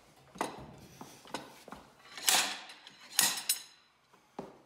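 Slide hammer banging out the old wastegate bushing from a BMW N54 turbocharger housing: several sharp metallic clanks as the weight strikes its stop, each with a short ring, the two loudest about two and three seconds in.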